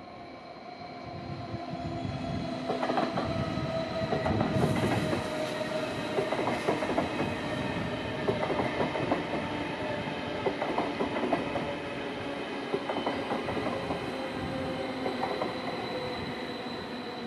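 Stadler KISS double-deck electric multiple unit passing close by, its wheels clattering over the rails. The sound builds over the first few seconds, is loudest about four to five seconds in, then stays fairly level as the long train goes by.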